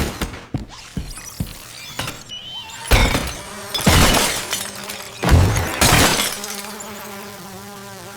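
A few sharp knocks, then three loud crashing noises, followed by a steady buzzing hum.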